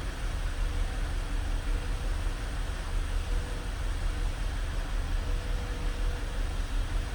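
2018 Chrysler Pacifica's 3.6-litre V6 idling roughly, its level wavering unevenly: a multiple-cylinder misfire (code P0300).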